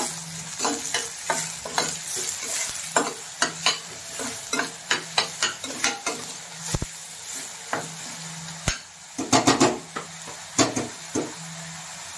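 Chopped onions sizzling in hot oil in a stainless steel pan while a metal spoon stirs and scrapes them, clinking against the pan many times, with a run of louder knocks about nine to ten seconds in.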